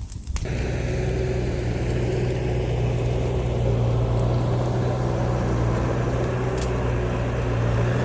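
Diesel engine of a Bobcat compact machine running steadily at a constant speed, coming in abruptly about half a second in.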